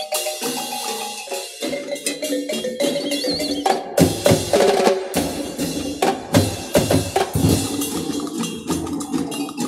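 Percussion-led dance music: quick wooden knocking and pitched tones, with heavy drum hits joining about four seconds in.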